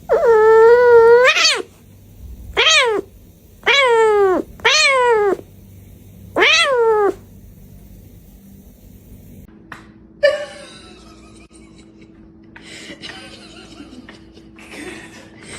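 A cat meowing five times: one long drawn-out call first, then four shorter calls that fall in pitch. After that, a quieter stretch with a faint steady hum and scattered scuffling noise.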